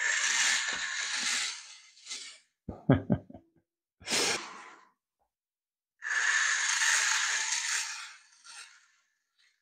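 Small solar-powered motor and freshly greased plastic gearbox of a solar robot kit boat whirring in bursts of a second or two, starting and stopping as lamp light falls on its solar panel. A few heavy knocks come about three seconds in.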